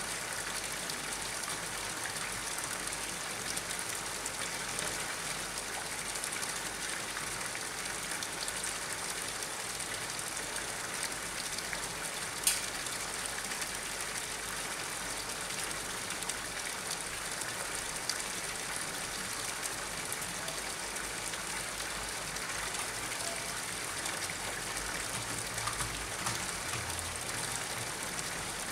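Steady splashing and hiss of water falling onto a pond's surface, with one sharp click about twelve seconds in.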